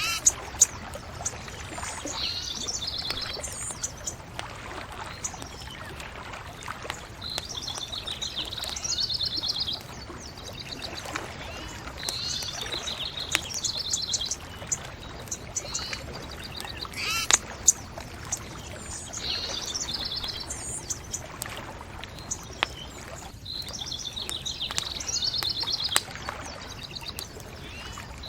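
A songbird sings the same short trilled phrase over and over, a few seconds apart, over the crackling of a wood fire with scattered sharp pops.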